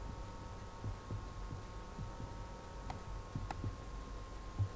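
Faint room hum with a thin steady electrical whine and soft low thumps, and two computer mouse clicks about three seconds in while the model is rotated on screen.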